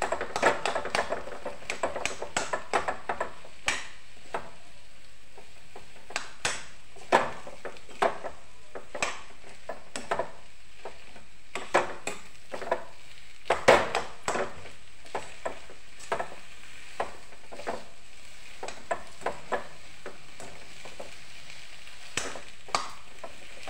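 Slotted steel spoon stirring and scraping a spiced potato-and-pea filling around a steel kadhai: irregular metal clinks and scrapes, some in quick runs, over a steady low sizzle as the filling is sautéed.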